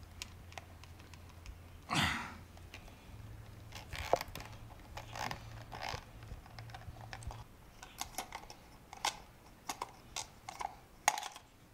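Small clicks, taps and rubs of hands working a tight new rubber fuel hose onto the plastic outlet of a fuel pump assembly and fitting its hose clamp, with one louder rub about two seconds in.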